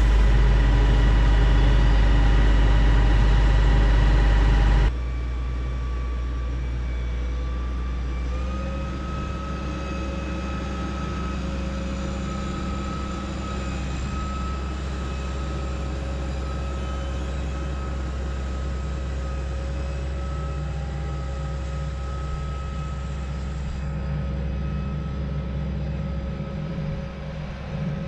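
Case IH combine's diesel engine just after starting, running loud and steady, then dropping to a lower level about five seconds in. About eight seconds in a steady whine rises slightly in pitch as the combine moves off and keeps running.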